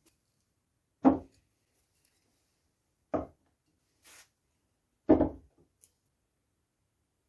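Three short knocks of a wooden object, about two seconds apart, the second the quietest.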